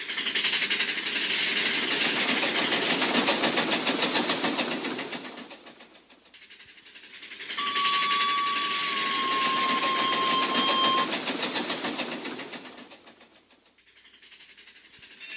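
Big Thunder Mountain mine-train roller coaster cars rattling fast along the track as they pass, twice, each pass swelling and then fading. A long steady high tone, falling slightly in pitch, sounds during the second pass.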